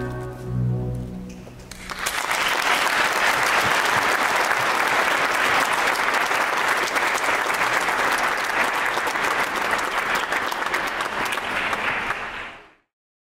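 The final chord of a choir and chamber orchestra dies away, and then applause breaks out about two seconds in. The applause goes on steadily and fades out near the end.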